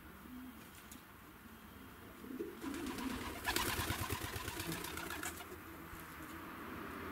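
Maltese pigeon cock cooing in low, repeated notes. About three seconds in a louder burst of rustling with rapid clicks joins it for a couple of seconds.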